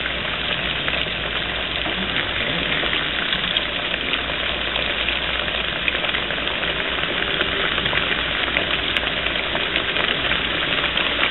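Breaded green tomato slices deep-frying in hot oil in a skillet: a steady sizzle with fine crackles.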